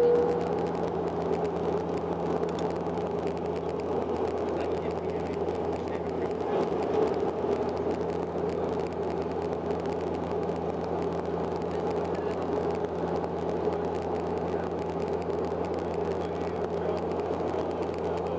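Bombardier Dash 8-Q400 turboprop engines and propellers droning steadily, heard from inside the passenger cabin, with a constant low hum under the noise.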